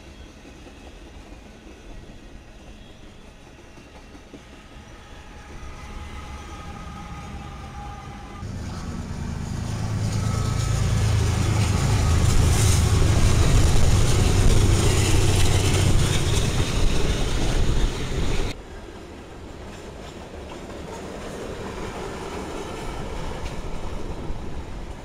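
Freight trains passing close by. First a train of loaded flatcars rolls past fairly quietly with a few faint high wheel tones. Then BNSF diesel locomotives pass, loud, with a steady low engine drone. After an abrupt change, loaded freight cars roll by with a steady rumble.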